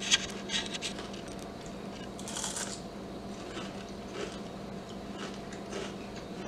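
Crisp deep-fried, breadcrumb-coated onion ring being bitten and chewed: one sharp crunch right at the start, then a run of smaller crunches.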